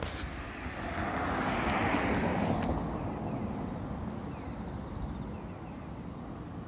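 A car passing on the road alongside, its tyre and engine noise rising to a peak about two seconds in and then fading away, over a steady low traffic rumble.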